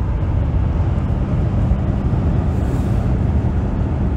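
Steady low rumble of motorway driving heard from inside an old Mercedes-Benz W126, as it passes close alongside a car-transporter lorry.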